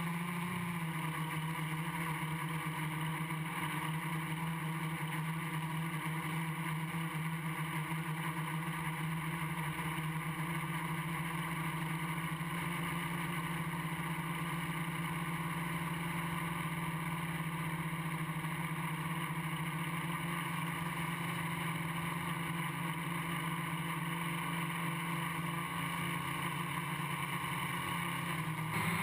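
Quadcopter's electric motors and propellers buzzing steadily at a near-constant pitch, heard from the GoPro mounted on the aircraft.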